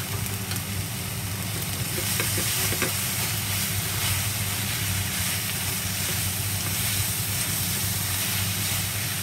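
Marinated chicken and cabbage sizzling in a large metal wok while being stirred and tossed with long chopsticks, over a steady low hum.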